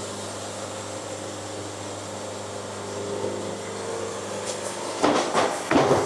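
Hydraulic band sawmill running steadily, a machine hum with a noisy wash over it.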